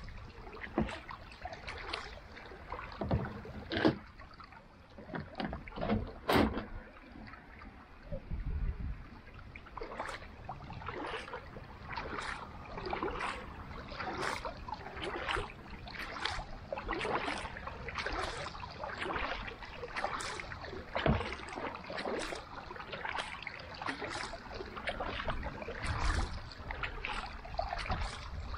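Carbon kayak paddle (TNP Wolverine Carbon) stroking through lake water, with a few sharp knocks in the first several seconds. From about a third of the way in it settles into a steady rhythm of short splashes, one per blade stroke.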